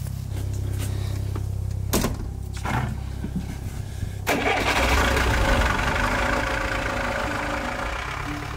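A vehicle engine running steadily at idle, with a sharp knock about two seconds in; about four seconds in the engine suddenly becomes louder and rougher, with added hiss.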